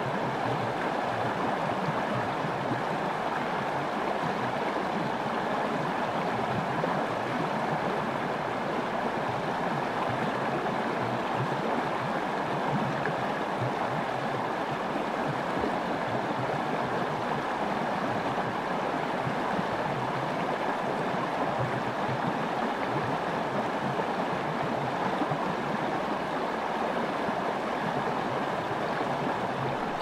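Small river rapids rushing steadily, an even wash of running water without a break.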